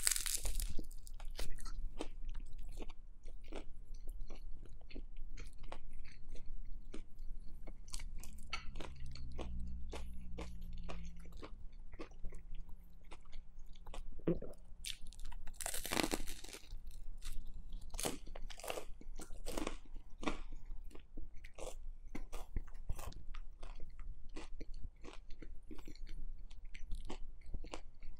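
Close-miked chewing of a banh mi: the crispy baguette crust crunches with each bite and chew in a quick, irregular run of crackles.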